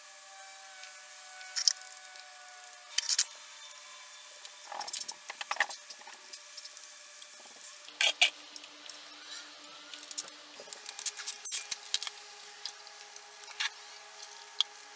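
Scattered clinks and clicks of hand tools and metal parts being handled on a motorcycle engine, over a faint steady hum. The clicks come more often in the last few seconds.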